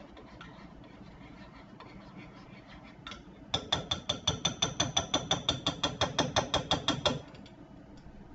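A metal spoon stirring fast in a ceramic cup, clinking against its side about eight times a second for nearly four seconds, starting about three and a half seconds in; the cup rings with each stroke. The spoon is working through a partly melted, creamy mixture.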